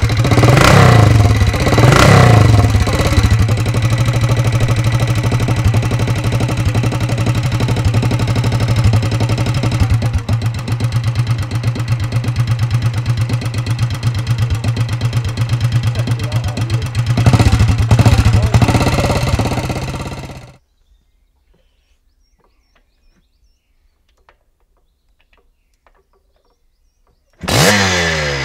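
CCM four-stroke single-cylinder scrambler engine being blipped: three quick revs, then a steady idle, one more rev, before the sound dies away about two-thirds of the way in. After several seconds of near silence a 430cc Husqvarna two-stroke starts and revs near the end.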